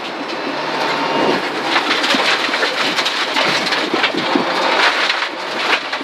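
Rally car at speed on a gravel stage, heard from inside the cabin: the engine runs under a dense, continuous rattle of gravel spraying against the underbody and wheel arches. The gravel noise thickens about a second in.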